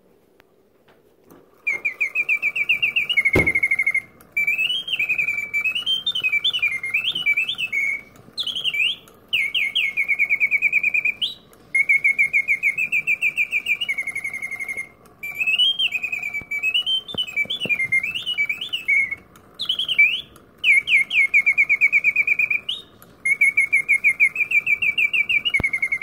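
German wind-up singing-bird cage automaton (bird whistler) singing with a loud chirp: its bellows-driven whistle repeats phrases of fast chirping trills and rising-and-falling warbles, with short pauses between phrases. It starts about two seconds in, and a single knock comes about a second after that.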